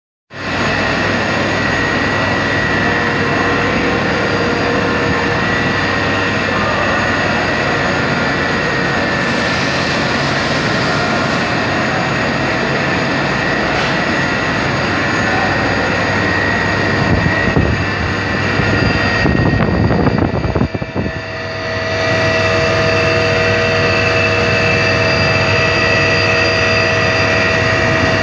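Three-spindle Makino Seiki CNC milling machine running, its spindle whining steadily as an end mill cuts a metal block. About two-thirds of the way in the noise briefly dips and its tone shifts.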